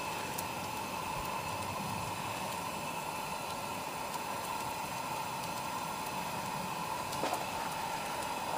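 Steady, even background noise with a constant hum, and a few faint clicks.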